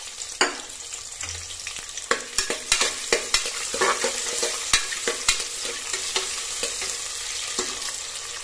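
Freshly added sliced onions sizzling in hot oil in an aluminium pressure cooker, with a steady hiss. A steel ladle stirs them, scraping and clicking against the pot, most busily from about two to five seconds in.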